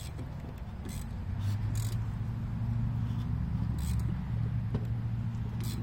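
Steady low motor hum that sets in about a second and a half in, with a few light metal clicks over it.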